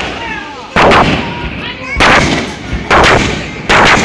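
Fireworks shells bursting overhead: four loud booms about a second apart, each trailing off in a long echo.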